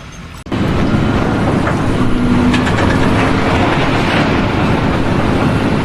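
Loud, steady rumble of a heavy vehicle or machine, starting abruptly about half a second in.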